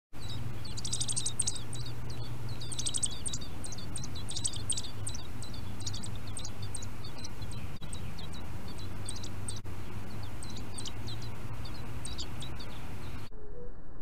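Nestling songbirds cheeping to beg for food: quick high chirps, densest in two bursts near the start and then scattered, over a steady low hum. The sound cuts off abruptly near the end.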